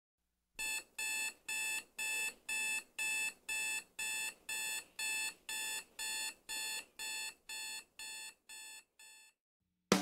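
Electronic alarm beeping in a steady pattern of about two high-pitched beeps a second. The beeps fade over the last couple of seconds and then stop.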